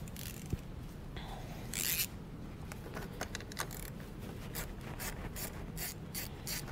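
Quarter-inch ratchet with a 10 mm socket clicking in short, sharp ticks, about three a second in the second half, as it loosens a negative battery terminal nut. There is a brief scrape of metal handling about two seconds in.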